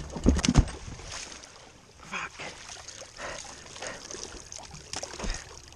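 Boots thumping onto loose wooden planks, then several splashing, sloshing steps through shallow muddy flood water.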